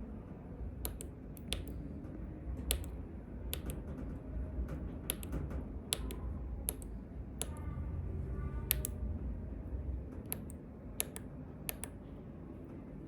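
Small tactile push buttons being pressed one after another to key in Morse code dots and dashes: a string of sharp clicks at an uneven pace, many in quick pairs, over a low background rumble.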